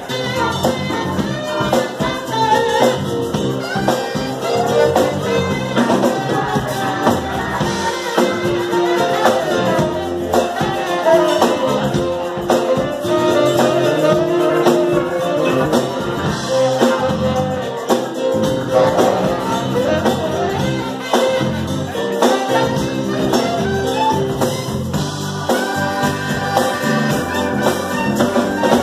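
Live band playing loud amplified music with electric guitar and a singer's voice, continuous throughout.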